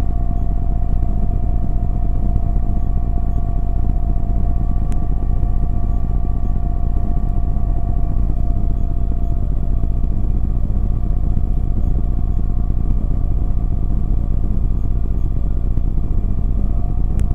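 Engine and propeller of a Halley Apollo Fox microlight running steadily in flight, heard from inside the cockpit: a constant low rumble with a steady hum on top.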